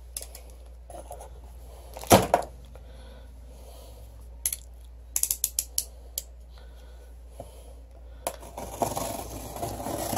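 Green snap-off utility knife: a thump about two seconds in, then a quick run of ratcheting clicks from the blade slider about five seconds in, and near the end the blade scraping through packing tape and cardboard.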